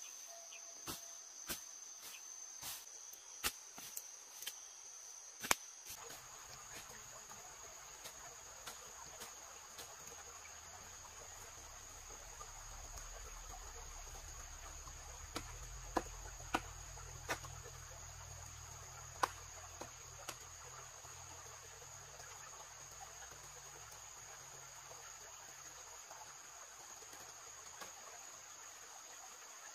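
Steady high-pitched insect chirring, typical of crickets, with scattered sharp knocks or taps, several in the first few seconds and a few more around the middle.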